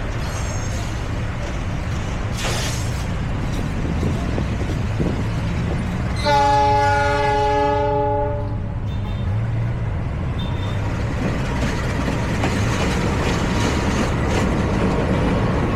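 Diesel-electric locomotive horn, a KAI CC 206, sounding one long blast of about two seconds a little past the middle, several tones together, over the steady rumble of the train running on the rails.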